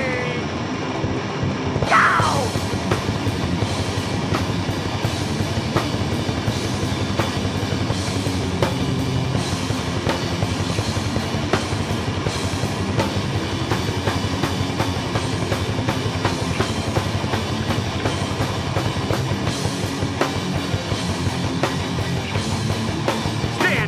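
Heavy metal band playing live, an instrumental passage of distorted electric guitars, bass and fast, busy drumming with cymbals, with a short falling guitar squeal about two seconds in.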